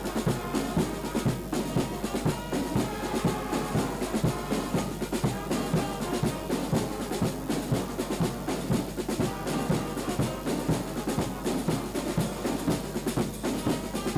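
Lively band music with brass instruments over a fast, steady drumbeat.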